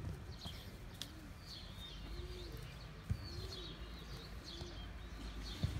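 Birds chirping: short high calls repeating about once a second, with two soft knocks, one about three seconds in and one near the end.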